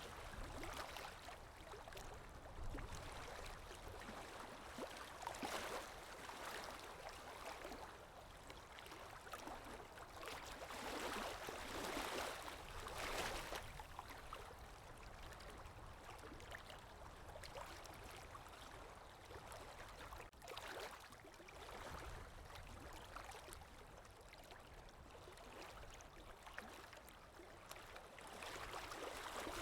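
Lake waves breaking and washing onto the shore: a steady rush of water noise that swells several times, the strongest surges about a third of the way through.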